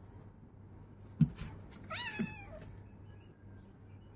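A kitten meows once, a short call that rises and then falls, while it is held for claw trimming. A single sharp click comes just before it, about a second in.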